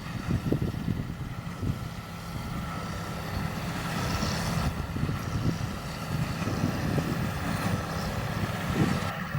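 John Deere 7820 tractor and Massey Ferguson 2270 large square baler running steadily while baling straw, with wind buffeting the microphone.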